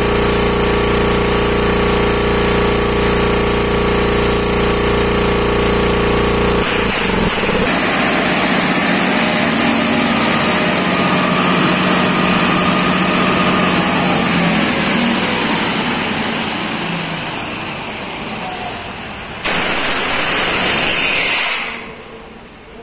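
Hatlapa W 220 air compressor running under test, a loud, steady mechanical drone. About seven seconds in the deep steady part stops abruptly, leaving a loud rushing hiss with slowly falling tones. The hiss fades, surges again briefly and drops away near the end.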